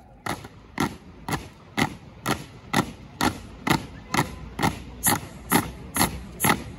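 A drill squad's boots striking the ground together in a steady marching rhythm, about two steps a second, some fourteen in all.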